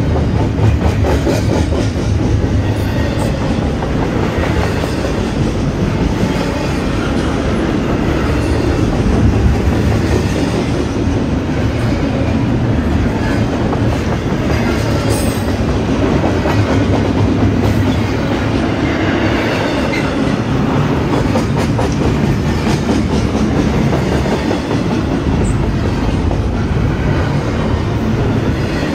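Double-stack intermodal freight train's container-laden well cars rolling past close by, a steady rumble with the wheels clicking over the rail joints.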